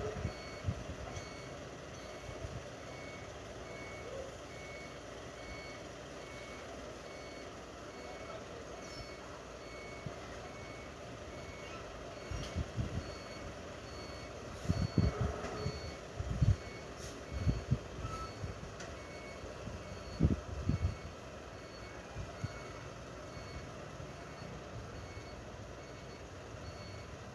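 Garbage truck's reversing alarm beeping steadily, about one high beep a second. A few loud low thumps come through around the middle.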